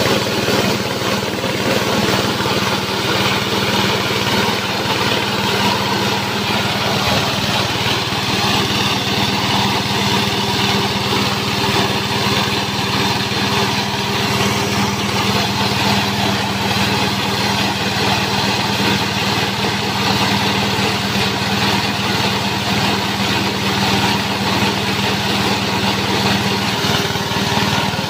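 JG 125 multifunction grass chopper, driven by a small engine, running steadily under load as material is fed through its hopper.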